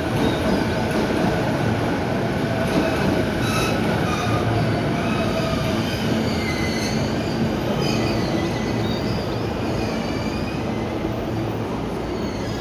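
A train moving on steel rails with a continuous rumble. High, wavering wheel squeal is heard from about three seconds in until around nine seconds.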